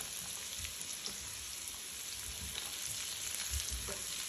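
Chopped fresh ginger, garlic and green chillies sizzling steadily in hot oil in a wok, with a spatula stirring them and a few light scrapes and taps.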